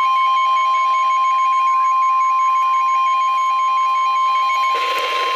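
NOAA Weather Radio's 1050 Hz warning alert tone: one steady, loud, high beep held unbroken, the signal that a warning broadcast follows. A faint rapid pulsing sits beneath it, and radio hiss rises near the end.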